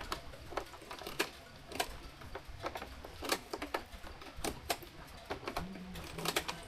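A run of irregular, sharp clicks and light knocks, several a second, over a faint low hum.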